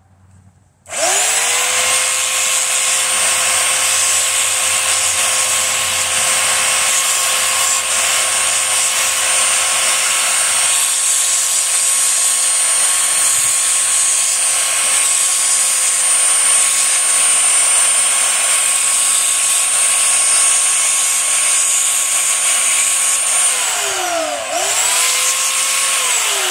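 Small electric belt sander switched on, its motor whining up to speed and running steadily with a grinding hiss as the cut ends of metal threaded rods are held against the belt to deburr them. Near the end it is switched off and winds down, is briefly started again, and winds down once more.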